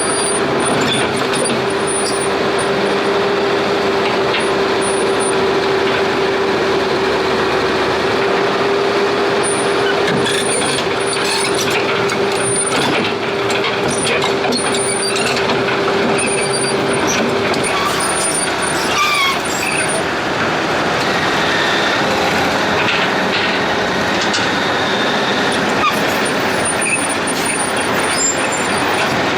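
Heavy diesel engine running hard and steady, with a constant whine that fades out about two-thirds of the way through.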